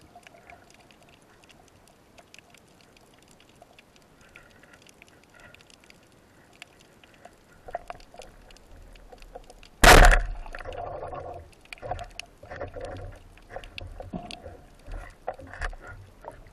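A 110 cm Matador band-powered speargun fires underwater about ten seconds in: one sharp, very loud crack. Rustling and irregular knocks follow for a second or two, over a faint crackle of underwater clicks.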